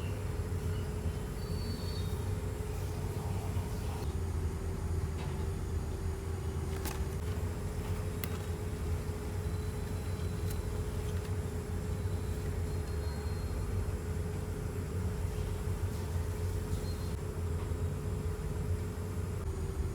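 Steady low rumble of a moving vehicle, with a faint steady hum and a few light clicks.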